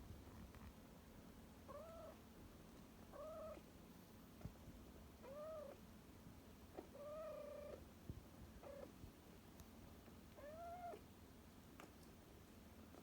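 Kitten meowing, about six short, faint meows a second or two apart, each rising and falling in pitch; the one about seven seconds in is drawn out longer.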